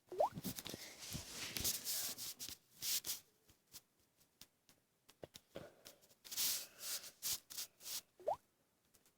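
Rustling and rubbing of materials being handled in two stretches, with scattered small clicks and two brief rising squeaks, one near the start and one near the end.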